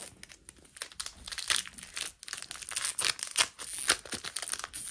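Foil trading-card booster pack being torn open by hand, the wrapper crinkling and crackling in quick irregular rustles as it is ripped and peeled apart.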